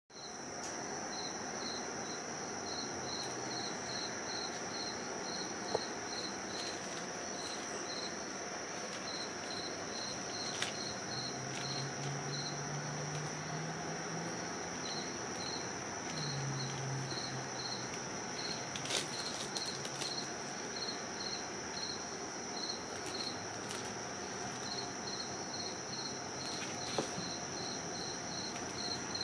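A cricket chirping steadily, about three short high chirps a second with a few brief pauses, over a steady high whine. A few faint knocks are heard now and then.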